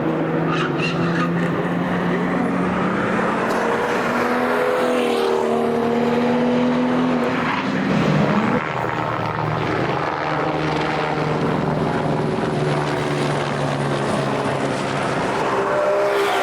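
Racing car engines at high revs going past, several overlapping, their pitch shifting as the cars brake and accelerate. The loudest car passes about eight seconds in, its note dropping sharply as it goes by.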